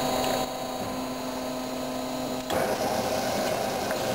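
Bianco MKG 330 SA semi-automatic metal-cutting band saw: a low steady hum, then about halfway through it starts running with a sudden louder, fuller machine sound that carries on steadily.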